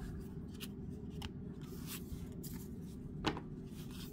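Paper trading cards being handled: a few soft flicks and taps as cards slide through the hands and are set down on a table, the loudest about three seconds in, over a steady low hum.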